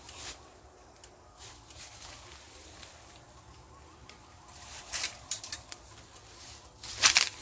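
Dry bamboo stalks and leaves rustling and scraping as a man climbs through a bamboo clump. There is a run of short crackles about five seconds in and a louder burst near the end.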